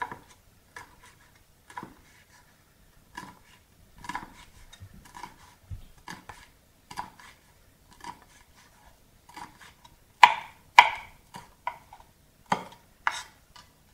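A cleaver chopping fresh red chilies on a wooden cutting board: irregular sharp knocks of the blade striking the board, with the loudest couple of strikes about two-thirds of the way through.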